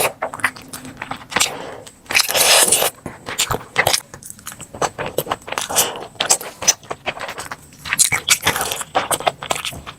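Close-miked crunchy eating: rapid sharp crunches and crackles of biting and chewing, with a louder crunching spell about two seconds in and again near the end.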